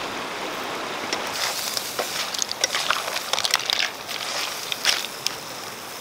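River mussel shells clattering against each other and the metal wok as they are stirred with a wooden spatula: a quick, irregular run of sharp clicks starting about a second and a half in. Underneath is a steady rush of flowing river water.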